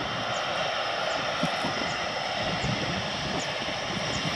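Panavia Tornado jets' Turbo-Union RB199 turbofans running at low power on the ground: a steady rushing jet noise with a high whine held on top.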